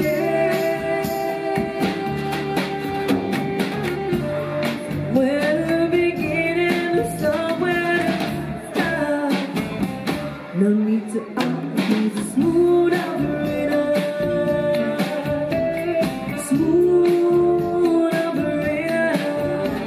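Live band music: a woman singing lead into a microphone, with drum kit accompaniment keeping a steady beat.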